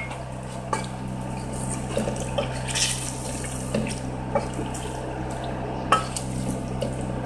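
A spoon stirring chicken pieces through milky korma gravy in a steel pot: wet sloshing with several light knocks of the spoon against the pot, over a steady low hum.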